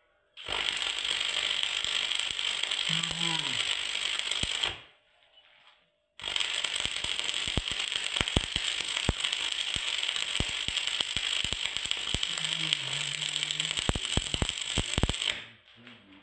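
Stick (arc) welding steel: the electrode's arc crackles and hisses in two runs, about four seconds and then about nine seconds with a short break between, the second run peppered with sharp pops, thickest near its end.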